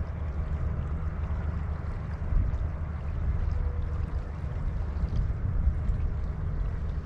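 Wind buffeting the microphone: a steady low rumble with small gusts.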